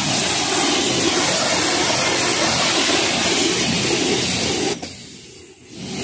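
Pressure washer spraying water with its motor running steadily. It stops abruptly near the end for under a second, then starts up again.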